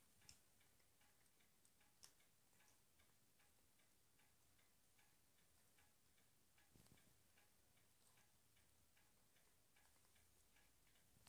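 Near silence with a faint, regular ticking throughout, and a brief soft rustle about seven seconds in as the cat pushes its head into a paper bag.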